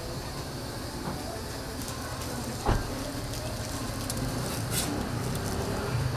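Street food stall sounds: a steady sizzling and clatter under street noise, with one sharp knock about three seconds in.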